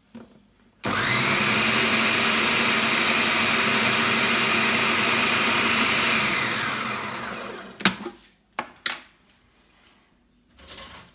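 A food processor whirs through shortcrust pastry crumbs (flour, salt, butter and shortening) while iced water is spooned in to bring the dough together. It starts suddenly, runs steadily for about five seconds, then winds down. Three short sharp knocks follow.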